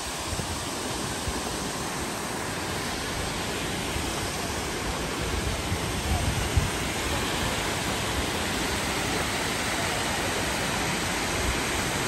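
Rushing water of the Kuhflucht waterfall's tiered cascades: a steady, even roar that grows a little louder after the first few seconds. A few brief low thumps come about six seconds in.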